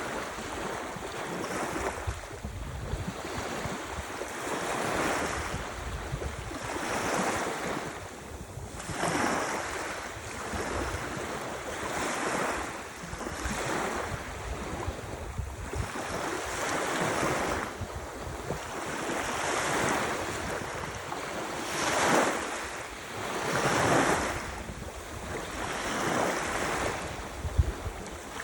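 Ocean surf washing in, swelling and fading every couple of seconds, with wind buffeting the microphone in a low rumble.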